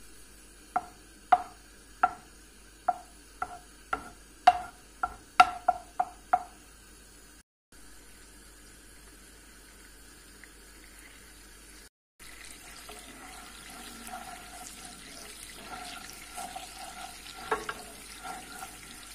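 Watery homemade yogurt and oil heating in a nonstick frying pan: about a dozen sharp pops and spits in the first six seconds, then a soft sizzle with light popping as the yogurt bubbles. A wooden spoon stirs it near the end.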